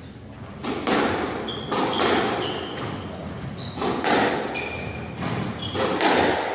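Squash rally: the ball struck by rackets and smacking off the court walls in a run of sharp knocks about every half second, with players' shoes giving short high squeaks on the wooden court floor.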